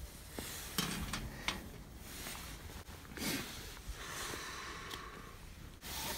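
Faint handling noises: a few light knocks in the first second and a half as a freshly poured glass of beer is set down on a metal mesh camp table, then soft rustling.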